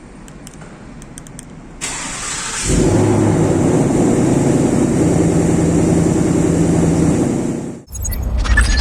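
Ford Mustang Mach 1's 5.0 L V8 starting: a brief crank about two seconds in, then it catches and runs at a steady fast idle through the exhaust. The sound cuts off abruptly near the end and a louder low rumble follows.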